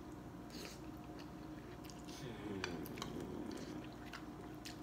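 A person chewing a mouthful of rice-noodle soup, with a few small clicks of mouth or utensils, over a faint steady hum. A faint low murmur comes in about two seconds in.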